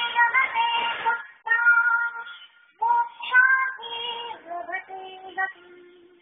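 A high voice singing a Hindu devotional song in phrases of long held notes with short breaks between them, ending on a lower note that is held and fades away.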